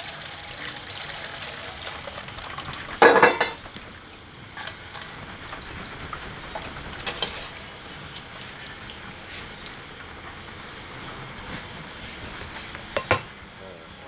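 Boiled rice noodles and hot water poured from a wok into a wire strainer, a brief loud splash about three seconds in, then a few light clinks of metal utensils. Crickets chirp steadily in the background.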